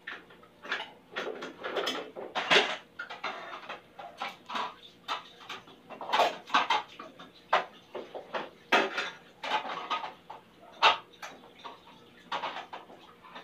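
Dishes and kitchenware clattering in short, uneven knocks and scrapes, one after another all through.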